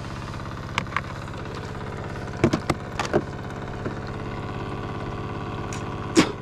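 Small RC-receiver-powered water pump, used as a bilge pump, running with a steady hum while moving little water, which the owner puts down to a blockage of sanding dust. Several sharp knocks and clicks from handling sound over it, the loudest about six seconds in.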